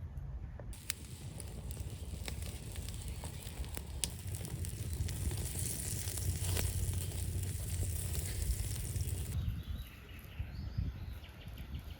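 Food sizzling as it fries over a wood fire, with sharp crackling pops. It starts abruptly about a second in and cuts off abruptly near the end.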